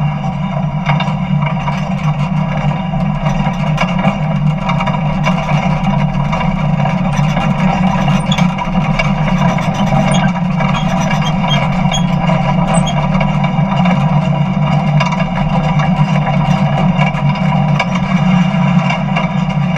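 Jet engine of a jet-powered semi truck running at idle, a loud steady hum with a high whine over it, heard from right on top of the engine as the truck rolls slowly.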